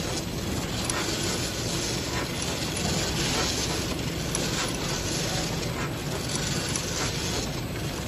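Automatic bottle labelling machine and its conveyors running: a steady mechanical hiss over a low hum, with a few faint clicks.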